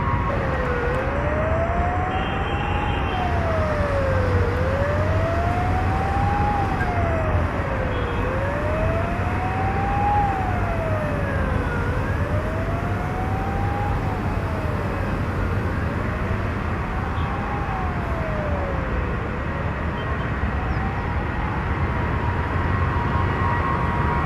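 A siren wailing, its pitch rising and falling slowly about once every four seconds, over a steady low rumble.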